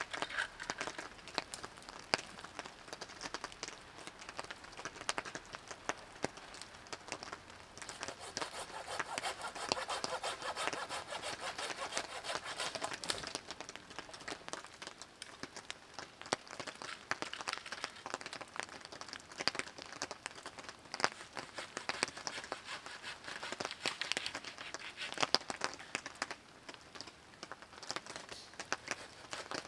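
Boots stepping through fallen branches and damp leaf litter on a forest floor: steady rustling with many small twig cracks and knocks, thickest for a few seconds around a third of the way in.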